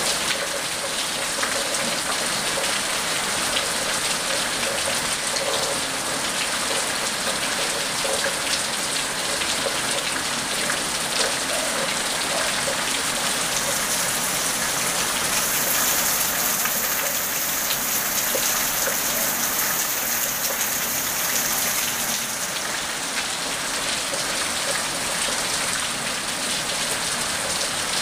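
Rain falling steadily on a paved street and concrete ground: an even hiss of many drops, turning brighter and hissier for several seconds in the middle.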